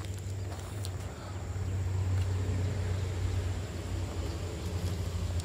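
Low, steady rumble of road traffic on the Rawang Bypass highway, swelling slightly about two seconds in.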